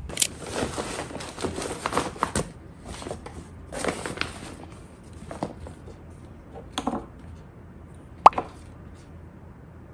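Handling noises indoors: rustling and light knocks for the first few seconds, then a few separate sharp clicks, the loudest about eight seconds in.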